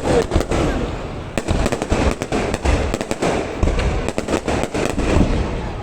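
Fireworks going off: a rapid, irregular run of sharp bangs and crackles over deep booms.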